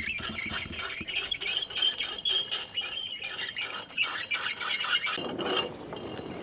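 Rapid, irregular scraping and light clatter of hands and utensils at cooking work, with a thin high wavering tone over it. About five seconds in, the scraping stops and a lower steady rushing sound takes over.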